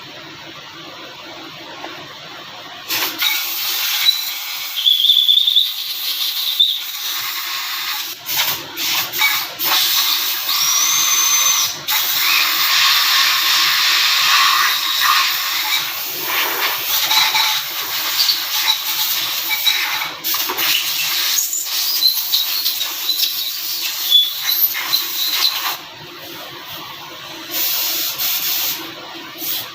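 A workshop power tool running in long stretches with short stops, a loud hissing noise with brief high squeals.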